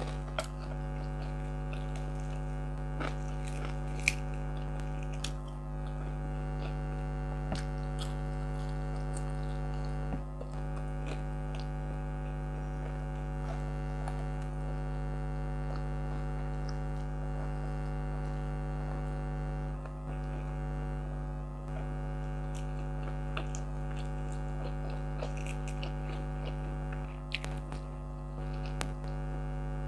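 Air conditioner running with a steady hum made of several fixed tones. Over it come close mouth sounds of chewing and biting as fried round scad and rice are eaten by hand.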